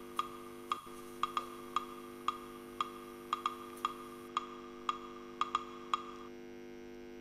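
Sharp, wood-block-like ticks about twice a second, some in quick pairs, stopping about six seconds in, over a steady electrical buzz.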